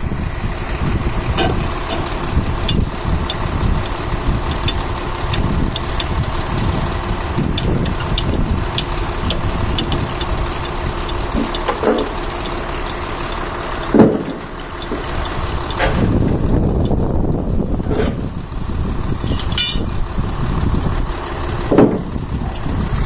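Heavy diesel truck engine running steadily, with scattered clicks and rattles, a short squeak about 19 seconds in, and two loud knocks, one about 14 seconds in and one near the end.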